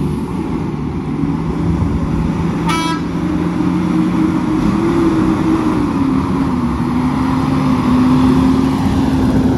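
Heavy truck's diesel engine running, its pitch climbing about halfway through as it picks up revs and then holding. A short horn toot sounds about three seconds in.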